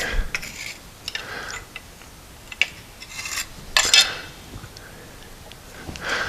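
A few short metal-on-metal scrapes and sharp clicks, the loudest about four seconds in, as a new bronze bush is lined up and centred in an idler arm for pressing in.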